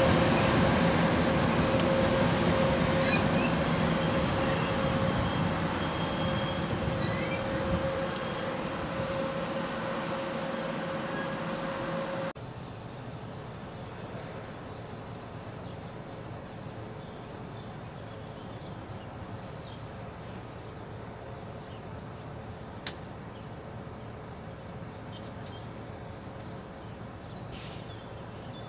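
Hellas Sprinter electric locomotive and its passenger coaches rolling past with a steady tone over the rumble, fading as the train draws away. About twelve seconds in, the sound cuts abruptly to a much quieter steady background with a few faint clicks.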